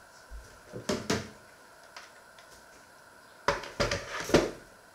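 Knocks and clatter of a plastic digital clock being handled and set down on a wooden worktop: a short burst about a second in, and a louder run of knocks from about three and a half seconds in.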